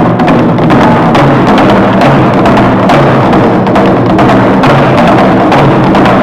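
Korean traditional (gugak) ensemble music with busy, steady drumming over sustained pitched instrument notes.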